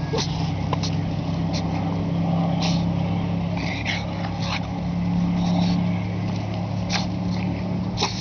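A steady low engine hum runs throughout, with scattered short clicks and rustles over it.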